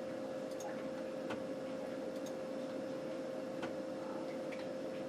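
A handful of irregularly spaced computer mouse clicks over a steady electrical hum.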